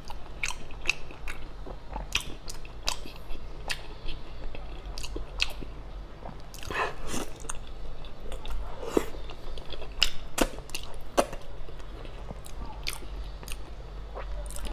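Close-miked biting and chewing of soft, gelatinous spicy braised beef tendon, with irregular wet mouth clicks and smacks.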